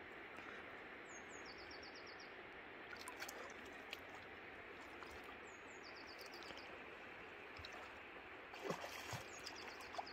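Steady rush of a flowing river. A small bird sings the same short high phrase three times, about four seconds apart: a quick downward note, then a fast run of short notes. A cluster of sharp clicks and rustles comes near the end.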